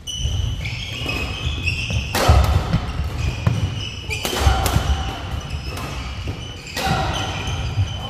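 Badminton rally: sharp racket strikes on the shuttlecock, three loud ones about two seconds apart with fainter hits between. Sneakers squeak and feet thump on the wooden court floor throughout.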